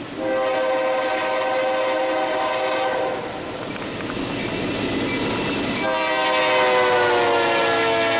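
Diesel freight locomotive's air horn sounding two long blasts, each a chord of several notes. The second blast falls in pitch as the locomotive passes close by, over the rumble of the approaching train.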